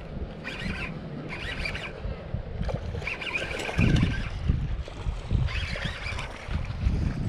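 Baitcasting reel cranked in several short spells while a hooked largemouth bass is brought in, over a low rumble of wind and handling on the microphone, loudest about four seconds in.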